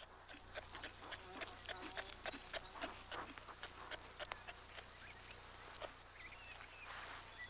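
Faint outdoor bush ambience: soft scattered clicks and rustles with a few brief high bird calls.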